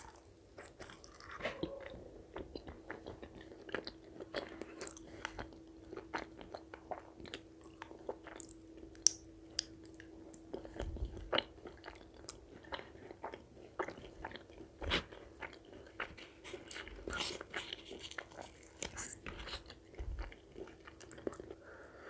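Close-miked eating sounds of chicken curry with puri: irregular chewing and biting, with many short wet clicks and smacks, over a faint steady hum.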